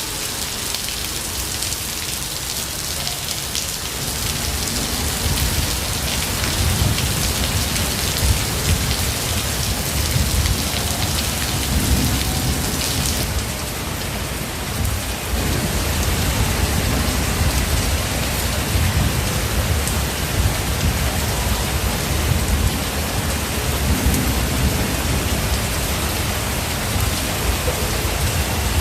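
Heavy rain falling steadily, with low rolling thunder rumbling underneath from about four seconds in, swelling and fading.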